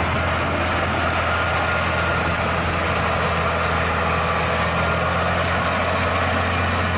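Heavy diesel engine of a Scania truck running steadily under load, hauling two loaded coal trailers, with a constant low hum and no change in pitch.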